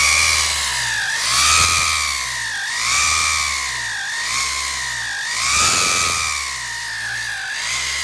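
Volkswagen Amarok biturbo's 2.0 four-cylinder twin-turbo diesel revved up and down over and over, about every one and a half seconds. A whistling tone rises and falls with the revs, with a hiss swelling on the stronger revs. The noise is blamed on a leaking exhaust manifold gasket and a burnt turbo base gasket.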